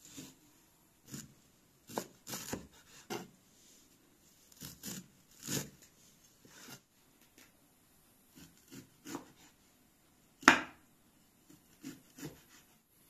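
Kitchen knife chopping fresh herbs on a round wooden cutting board: irregular knocks of the blade against the wood in short quick clusters, with one sharper, louder knock late on.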